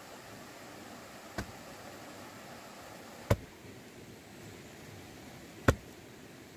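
A wooden post being struck to drive it into the ground: three sharp knocks about two seconds apart, the first faint and the last two loud, over a steady background hiss.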